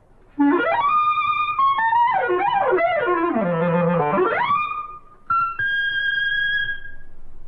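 Solo reed instrument playing a fast showpiece run. It sweeps up, tumbles through quick runs down to a low note and back up, and ends on a long held high note.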